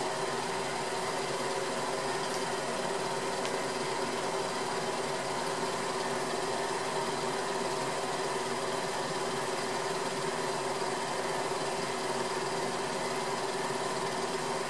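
Film projector running: a steady mechanical whir with a few held tones over a hiss.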